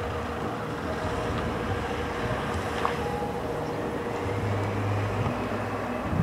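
Airbus A320-214's CFM56 jet engines running at a distance as the airliner lines up on the runway, with a faint whine rising slowly in pitch in the second half. Wind rumbles on the microphone.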